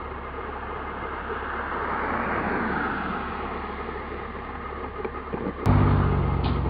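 A steady low hum and outdoor noise, with a rushing sound that swells and fades about two to three seconds in. After a sharp click about five and a half seconds in, a fire truck's engine idles loudly and steadily.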